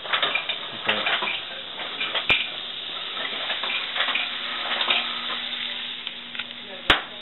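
Vegetables sizzling in a frying pan on the stove, with a sharp knock about two seconds in and a louder one near the end. A low steady hum comes in about five seconds in.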